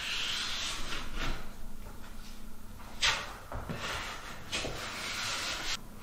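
Metal drywall knife scraping and wiping joint compound along a paper-taped butt seam on a drywall ceiling, in about five long strokes, with a short sharp, loudest scrape about three seconds in.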